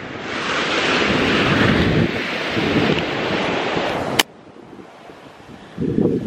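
Ocean surf breaking and washing up on a sandy beach, with wind buffeting the microphone. About four seconds in there is a click and the level drops suddenly, then the noise swells again near the end.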